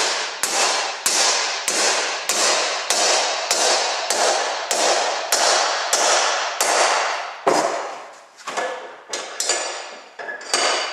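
Hammer blows on 1/8-inch steel strapping clamped in a vise, bending its end over into a flat lip. The blows come steadily, a little under two a second, each with a metallic ring. About seven and a half seconds in they give way to a few scattered lighter knocks.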